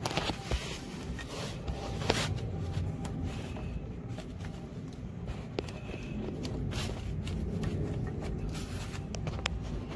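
Handling noise: rustling and scattered sharp clicks as a hand works right against the phone, over a steady low rumble.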